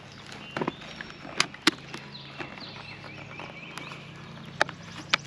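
Plastic snap clips of a Shoei Neotec 2 helmet's liner popping loose as the rear piece is pulled out: several short, sharp clicks, a pair about one and a half seconds in and two more near the end.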